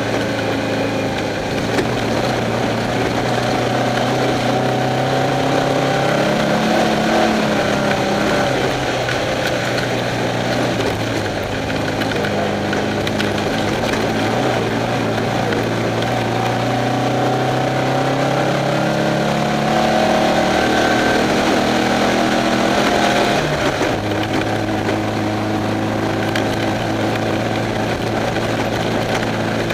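Off-road race car's engine running hard, heard from inside the car: its pitch climbs and falls as it accelerates and eases off. About three-quarters of the way through it drops sharply to a lower, steady note.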